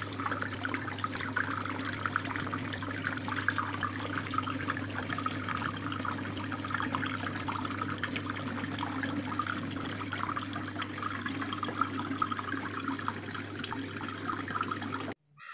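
Small homemade fountain running: water trickling and splashing steadily over a steady low hum, cutting off abruptly near the end.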